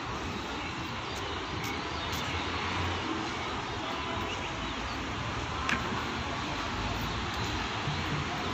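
Steady road-traffic rumble from double-decker buses and other vehicles crossing the road bridge, with a brief click about six seconds in.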